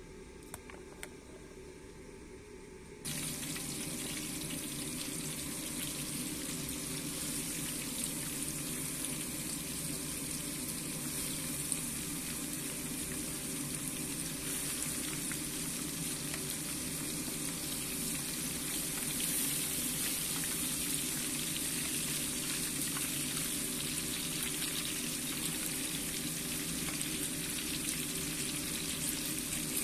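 Mackerel frying in a pan of hot oil: a steady, dense sizzle that starts abruptly about three seconds in, after a few seconds of quiet with a couple of faint clicks.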